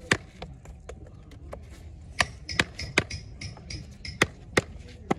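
A series of sharp chopping or knocking strokes at an uneven pace, about half a dozen loud ones among lighter taps. A faint ringing tone sounds along with the strokes in the middle.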